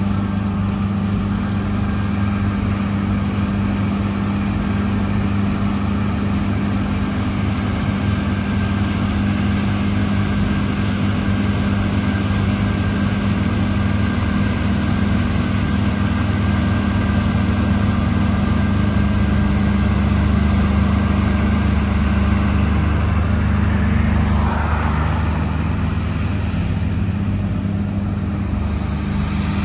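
Large John Deere harvest machine's diesel engine running steadily, a low even hum with no change in load.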